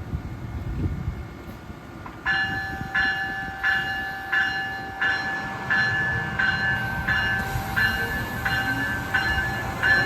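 A locomotive bell starts ringing about two seconds in, struck about one and a half times a second, over the low rumble of a train at the platform.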